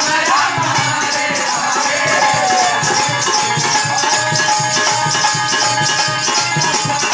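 Hari kirtan devotional music: a steady, fast beat of hand percussion under sustained melodic tones, with a brief gliding vocal-like line near the start.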